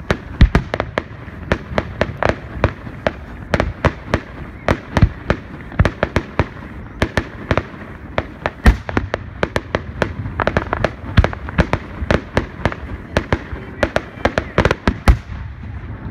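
Aerial fireworks shells bursting: a rapid, uneven run of sharp bangs and cracks, several a second, thinning out near the end.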